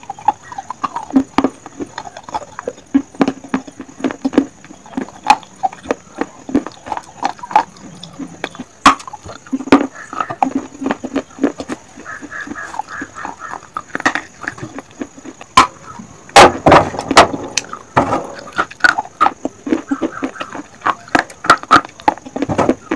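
Close-up crunching and chewing of baked terracotta clay from a clay cup: a dense run of sharp, crisp crunches and cracks as pieces are bitten and ground between the teeth, with a cluster of the loudest cracks about 16 to 17 seconds in.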